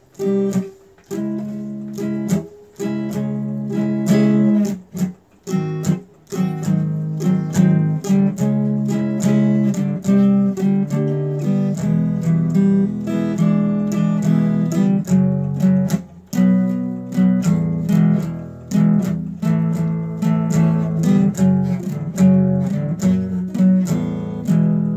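Acoustic guitar strummed in chords, with a few short breaks in the first six seconds.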